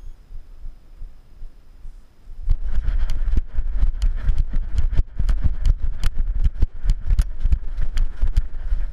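Dog-mounted action camera jolting as a rough collie runs: rapid low thumps with sharp clicks and knocks of the camera and harness at each stride. They start about two and a half seconds in, after a quieter stretch of low rumble.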